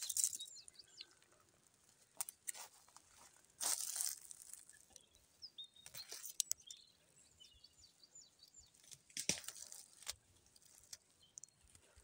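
Wild violets being picked by hand from the forest floor: several short crackly bursts of rustling and tearing leaves and stems. Faint bird chirps can be heard in between.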